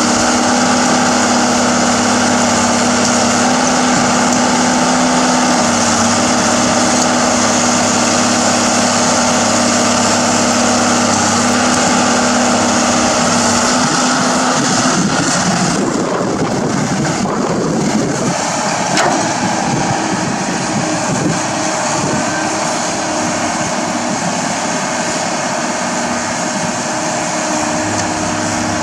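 Komatsu hydraulic crawler excavator's diesel engine running steadily as it digs. Around the middle the steady note gives way to a rougher, noisier stretch for a few seconds, and the engine carries on at a lower note afterwards.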